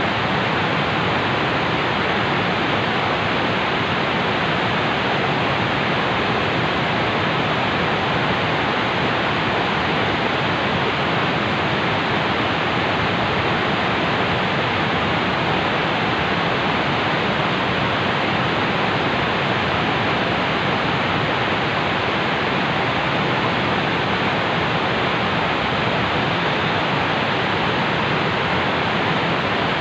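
Steady rushing of fast-flowing river water by a dam, an even, unbroken noise.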